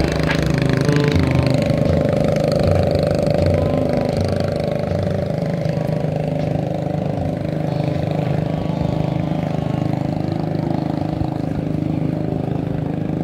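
A small engine running steadily, a constant drone.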